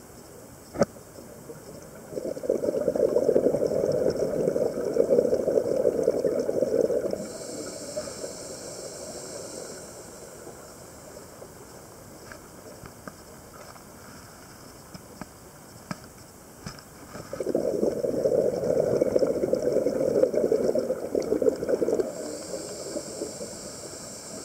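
Scuba diver breathing through a regulator underwater: two long exhalations of bubbling, each about five seconds, each followed by a hiss as the next breath is drawn. A sharp click about a second in, and faint ticking in between.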